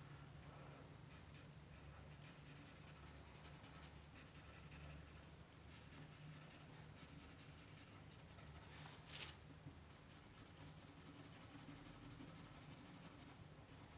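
Faint scratching of a drawing tool on paper, short strokes one after another, with one louder stroke about nine seconds in.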